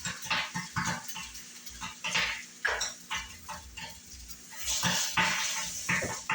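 Dishes, pans and utensils clattering during cooking: a string of irregular short knocks and scrapes.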